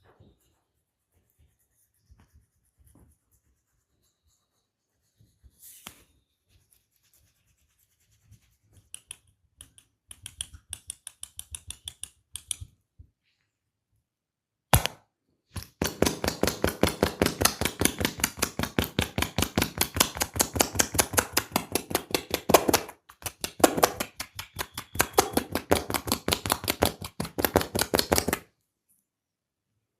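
Hands striking a person's head, neck or back in a fast, even rhythm of massage taps, several a second. A short run of lighter taps comes first, then one sharp slap, then a long, loud run of strikes with a brief pause partway through.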